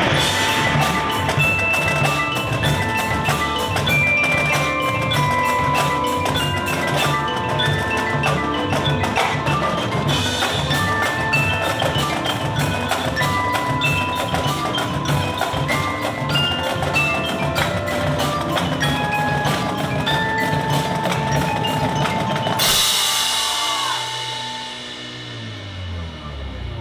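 Marching show band music: quick tuned mallet-percussion notes over a steady drum beat. Near the end the drums stop, a cymbal-like wash comes in and a single note is held.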